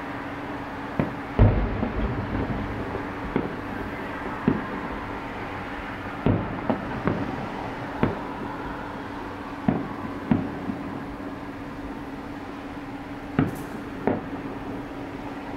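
Distant aerial firework shells bursting, about a dozen irregular booms with short echoing tails, the loudest about a second and a half in. A steady low hum runs underneath.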